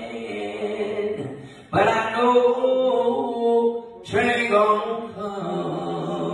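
A man singing unaccompanied in long, drawn-out held notes, with new phrases starting about two seconds and four seconds in.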